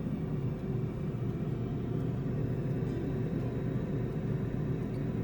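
Instant Vortex Plus air fryer running, its fan giving a steady, loud whirring rumble while it roasts.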